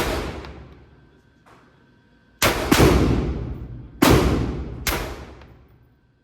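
Glock 25 .380 pistol firing five shots, each ringing out with a long echo: one at the start, then four in quick, uneven succession from about two and a half seconds in.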